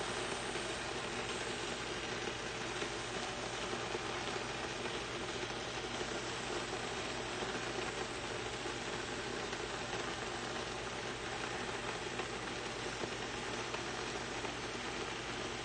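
Paella rice and stock simmering in a wide pan, a steady sizzling, bubbling hiss as the last of the liquid cooks off.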